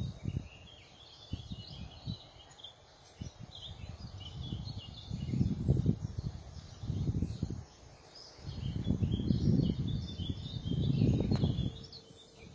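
Small birds chirping and singing throughout, with repeated gusts of wind rumbling on the microphone, each lasting about a second.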